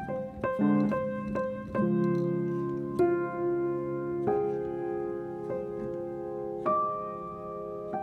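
Background piano music: a run of quick notes, then slower, held notes and chords.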